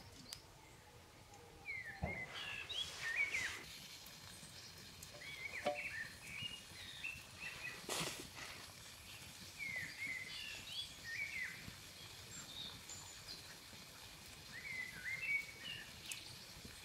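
A songbird singing short phrases of quick chirps, a new phrase every few seconds, over quiet forest ambience, with a couple of sharp clicks.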